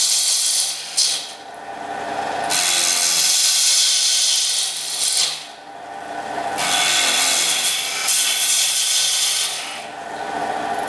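Record Regent wood turning lathe running with wood being worked against the spinning piece: three long stretches of loud scraping, each a few seconds, with short dips between them over a steady motor hum.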